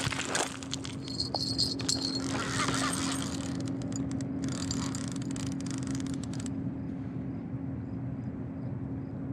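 Bite bell on a sturgeon rod jingling briefly about a second in as a sturgeon mouths the bait, over a steady low hum. A stretch of hiss stops suddenly about six and a half seconds in.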